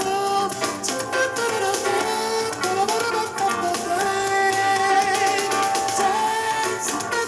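A song played back through a small Anker portable Bluetooth speaker, recorded by microphone as a sound test; the melody is strong but there is little deep bass.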